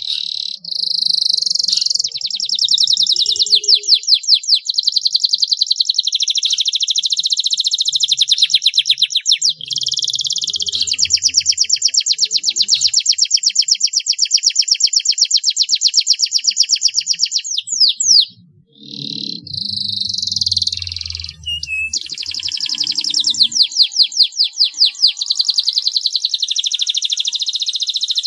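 Domestic canary singing a long song of fast rolling trills, with a short break about two-thirds of the way through before the song resumes.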